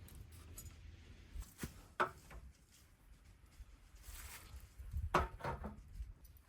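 A few short knocks and clatters of objects being handled, two about a second and a half in and a cluster about five seconds in, over a low rumble.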